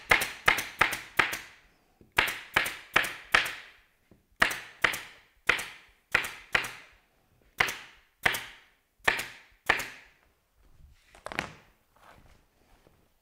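Staple gun firing staples through canvas into the wooden frame of a theatre flat: about two dozen sharp shots in quick runs of four to six, a few a second, with short pauses between runs, and one fainter shot near the end.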